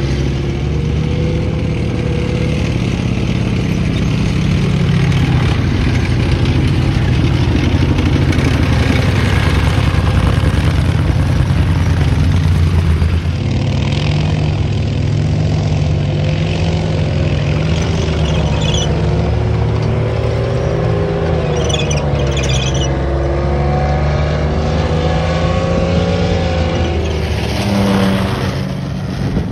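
Engines of tracked military armoured vehicles running loudly as they drive on dirt, in several edited cuts. A main battle tank's engine rises and falls in pitch as it manoeuvres from about 13 seconds in. Near the end comes a small CVR(T)-type tracked vehicle heard close up.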